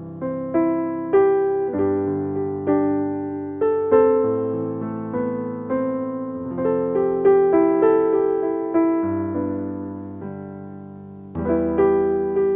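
Background piano music: a slow melody of struck notes and chords, each fading away, with a brief lull about ten seconds in before the playing resumes.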